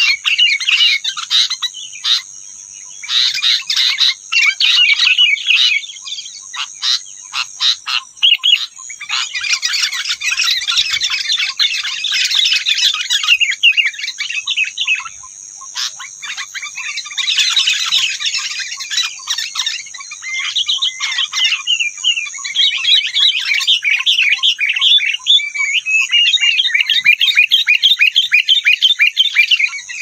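Songbirds singing loud, rapid chattering phrases of fast notes almost without pause, broken by a few short gaps in the first third, over a steady high-pitched whine.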